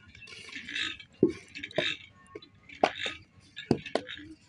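Hand-moulding of mud bricks: a wooden brick mould is knocked and set down on sandy ground with several sharp knocks, between short bursts of scraping and rubbing as the mould is worked.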